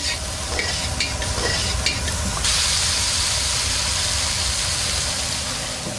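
Chopped filling of minced meat and diced vegetables being stir-fried in a wok, the metal spatula scraping and turning it in hot oil. A few scrapes in the first couple of seconds, then a steady sizzle.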